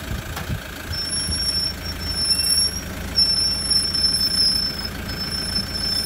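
Rear disc brakes of a Toyota Land Cruiser 120 Prado squealing as the vehicle rolls slowly with the brake lightly applied: a thin, high-pitched squeal that starts about a second in and comes and goes in stretches of about a second. The owner puts it down to genuine Toyota rear pads, as new rotors did not cure it. A low engine rumble runs underneath.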